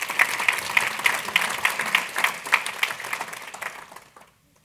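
A large audience applauding; the clapping fades away about four seconds in.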